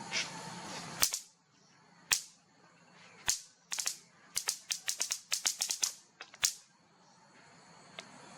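A series of sharp clicks: a few single ones about a second apart, then a quick run of about a dozen, and one more.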